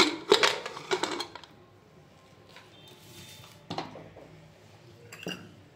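Metal pressure cooker lid being twisted open and lifted off, the pressure already fully released: a cluster of sharp metal clanks in the first second and a half, then two single knocks later on.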